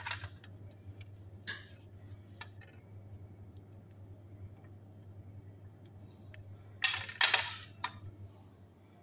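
A metal spoon clinking and scraping against a stuffed baked potato and its plate, with a few faint clicks early and two louder scrapes close together about seven seconds in, over a steady low hum.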